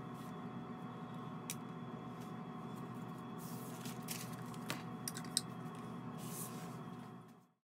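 Steady room hum with a few soft clicks and brief rustles as a plastic bucket is handled on a stainless steel worktable; the sound fades out near the end.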